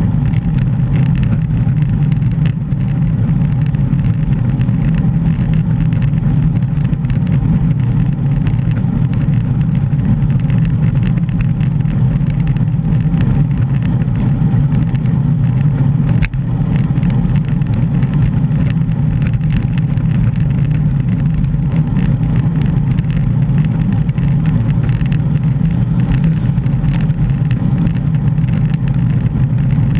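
Steady low rumble of wind buffeting a bicycle-mounted GoPro's microphone while riding.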